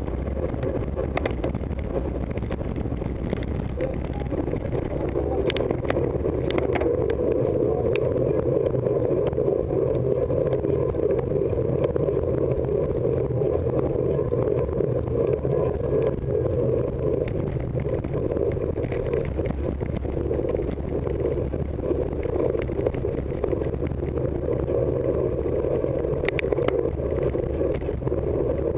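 Steady rush of wind and road noise picked up by a bicycle-mounted camera as the bike rides along, with a few sharp clicks from the bike, most of them around five to eight seconds in.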